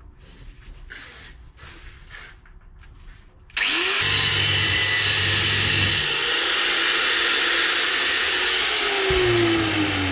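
An electric angle grinder starts abruptly about a third of the way in and cuts and grinds into the steel of the car's suspension mount, with a loud steady rush. Its motor pitch drops near the end as the disc is pressed harder into the metal.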